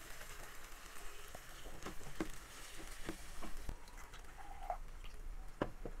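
Wooden spatula scraping and knocking ground masala paste out of a steel mixer jar into a frying pan, heard as scattered light taps and scrapes over faint background noise.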